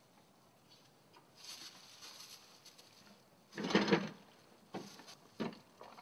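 A wooden garden gate bumping open a little past halfway, the loudest sound, then two sharp knocks near the end, with plastic carrier bags rustling before it.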